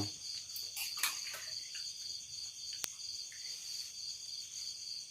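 Night-time crickets chirring steadily in a continuous pulsing high-pitched chorus, with one sharp click about three seconds in.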